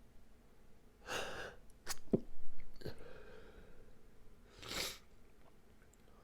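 A person's stifled sneezes during an allergy sneezing fit. A sharp breath in comes about a second in, then a muffled sneeze with a brief catch in the throat, loudest around two seconds in. Another sneezy breath follows near five seconds.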